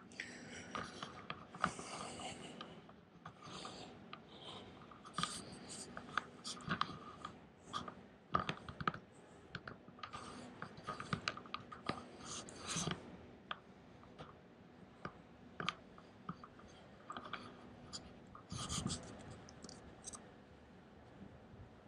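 Handling noise from a handheld camera carried while walking: irregular scratching and rubbing with scattered sharp clicks.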